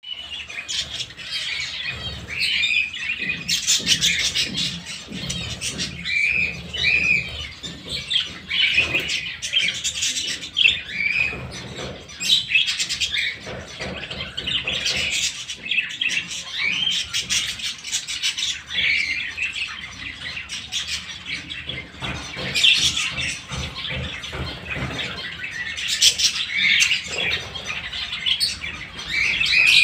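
Budgerigars chattering without pause: a busy warble of chirps and short sharp calls from several birds at once.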